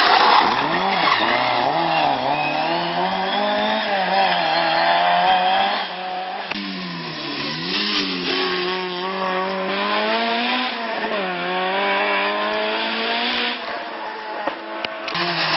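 Ford Escort rally car's engine heard approaching before it comes into view, revving hard with the revs rising and dropping again and again as it changes gear and brakes for bends.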